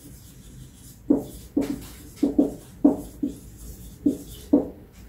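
Marker pen writing on a whiteboard: a quick series of about nine short, separate strokes.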